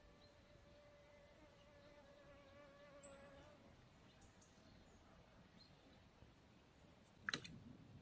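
Near silence, with the faint, steady whine of a mosquito flying close to the microphone for the first few seconds. A light click comes near the end.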